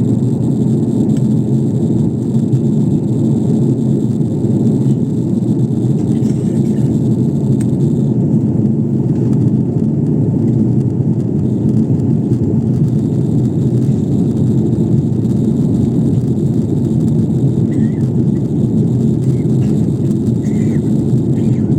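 Steady, even roar of an airliner in flight, heard from inside the passenger cabin.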